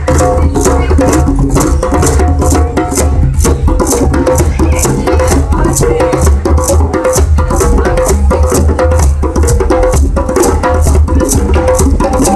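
Hand drum circle: several djembes and tall wooden standing drums struck by hand together in a steady, fast rhythm.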